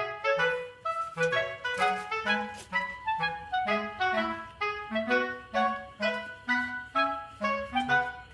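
Background music: an instrumental tune with a steady, bouncy beat, made of short notes that start sharply and fade quickly over a moving bass line.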